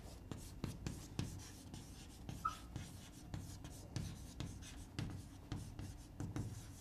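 Chalk writing on a blackboard: a faint run of short, irregular taps and scratches as words are written by hand.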